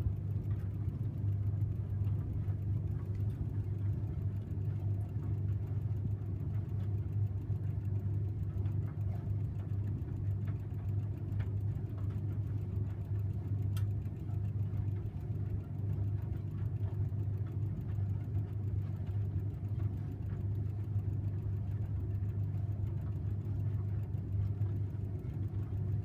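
A 1984 Parnall tumble dryer running: a steady low hum from its motor and fan, unchanging throughout.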